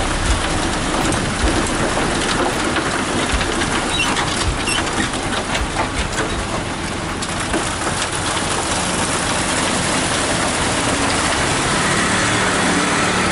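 Concrete mixer truck discharging: wet concrete rushing and scraping down the steel chute from the turning drum, a steady rain-like hiss, with the truck's diesel engine running underneath and more audible near the end.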